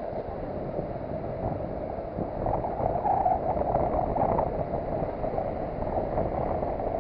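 Surf washing on the beach with wind on the microphone, swelling for a couple of seconds as a wave comes in.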